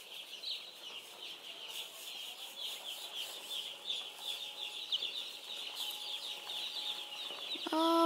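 A big flock of newly hatched chicks peeping continuously, many short high cheeps overlapping into a steady chorus.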